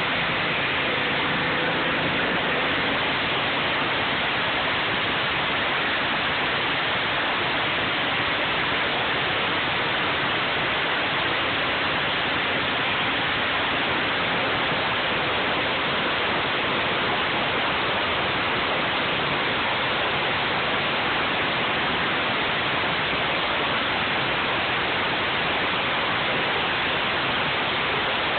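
High-pressure water jet from a pressure washer wand hissing steadily as it blasts across a concrete surface.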